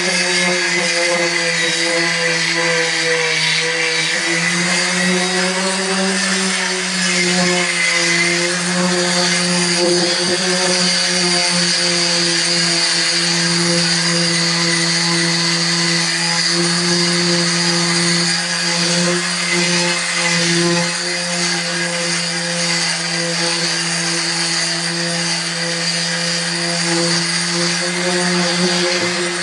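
Electric orbital sander running steadily, its motor humming under the hiss of the pad sanding back the old paint on a Toyota Coaster bus's roof.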